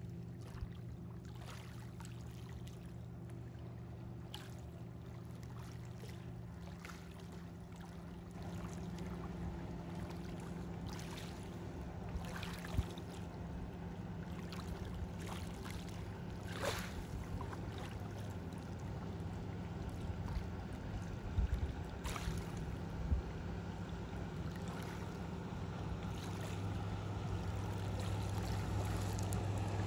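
The steady hum of a distant motorboat engine over small waves lapping at the shoreline, with a few short clicks along the way.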